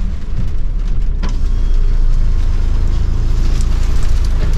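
Steady low rumble of a heavy goods vehicle's engine and road noise, heard from inside the cab, with a few faint clicks.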